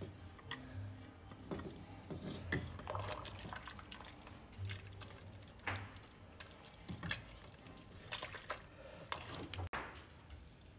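Ladle scooping menudo broth from a stainless steel stock pot into a ceramic bowl: faint liquid sloshing and dripping, with scattered light taps.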